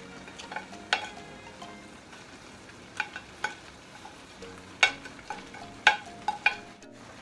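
Ground meat and vegetable sauce sizzling in a frying pan while a hand pepper mill is twisted over it. A few sharp, briefly ringing clicks come in small clusters, about a second in, around three seconds, and again between five and six and a half seconds.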